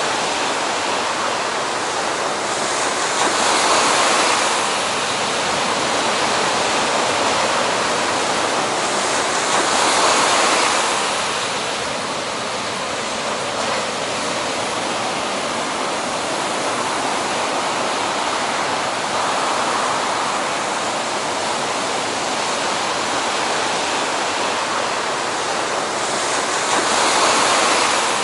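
Heavy ocean surf breaking: a constant rush of whitewater that swells louder three times, about four seconds in, about ten seconds in, and near the end, as big waves break.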